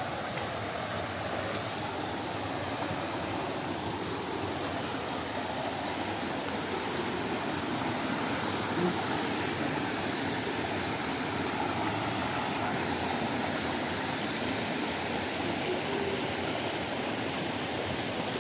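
Mountain stream rushing steadily over rocks and a small cascade.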